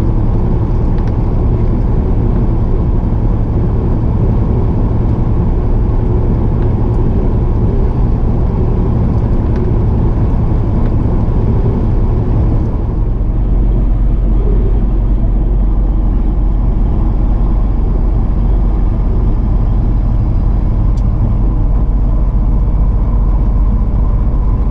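Semi truck driving at highway speed, heard from inside the cab: a steady, loud low drone of engine and tyres on the road, with a hiss of road noise above it. About halfway through the sound shifts to a deeper rumble with less hiss.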